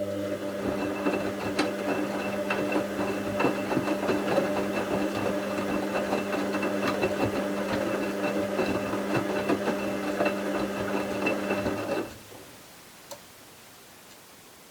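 Bauknecht WA 7778 W washing machine turning its drum during the wash: the motor runs with a steady hum and a clatter of small clicks for about twelve seconds, then stops for a pause, with one faint tick in the quiet. Its drum bearing is already beginning to wear, as the owner notes, though not yet badly.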